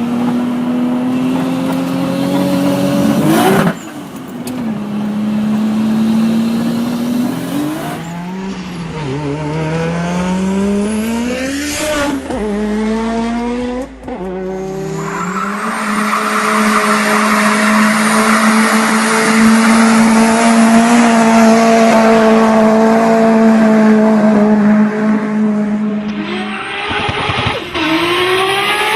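Turbocharged car engines revving up and lifting off several times, with turbo flutter as the throttle closes. Near the middle one engine holds a long steady high-rev note with a hiss over it.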